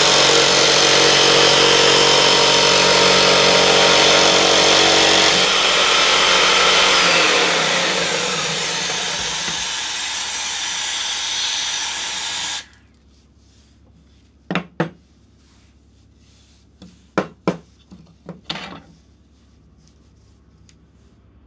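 Jigsaw mounted blade-up under a homemade jigsaw table, running and cutting plywood. About six seconds in its note drops and it runs quieter, then it stops abruptly. A few short, light knocks follow in three small groups.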